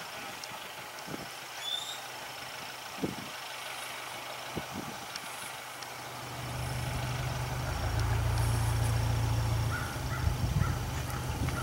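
A low, steady rumble that swells much louder about six seconds in and stays loud, with a few soft thuds in the first seconds and one short high chirp near the start.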